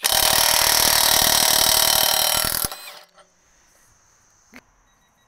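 Hercules Ultra Torque 20V brushless 1/2-inch cordless impact wrench hammering for about two and a half seconds as it breaks loose a nut tightened to about 750 ft-lb, then stopping. A single short click follows a couple of seconds later.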